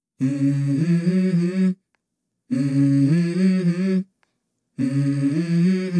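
Background music: a voice humming a melody in three short phrases, with clean silences between them.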